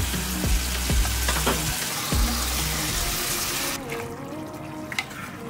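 A pot of lentils and water in a hot pan, sizzling with a steady hiss that stops abruptly nearly four seconds in. Background music plays underneath.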